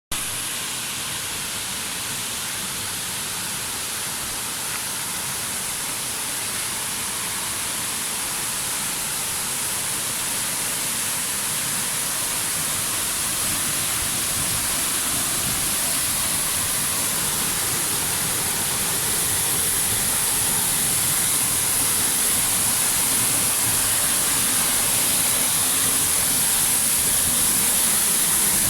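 Waterfall rushing steadily, a dense hiss of falling water that slowly grows louder.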